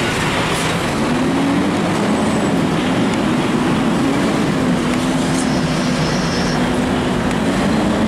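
Diesel semi-truck hauling cages of live chickens, idling right beside the camera: a loud, steady engine noise with a faint wavering tone under it from about a second in.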